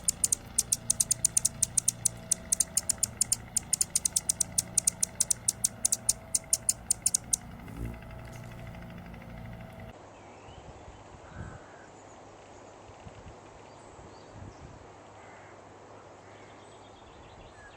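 Birds calling: a fast, even run of sharp, high clicking calls for about seven seconds, over a steady low hum. After a break there are a few faint, scattered chirps.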